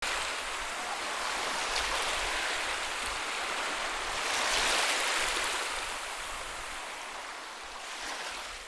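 Rushing water, a steady hiss that swells a little about halfway through and fades toward the end.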